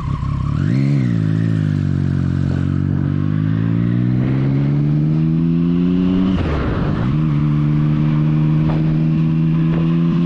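Motorcycle engine pulling away and accelerating, heard from the rider's seat. The engine note climbs sharply about half a second in and drops at a gear change. It then rises slowly, falls again at a second shift about six seconds in, and settles into a steady cruise.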